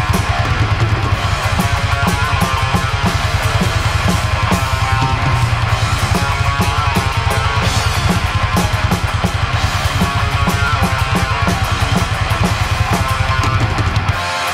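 Heavy metal music on a full drum kit with guitar, driven by rapid, steady kick-drum strokes; the fast kick pattern stops just before the end.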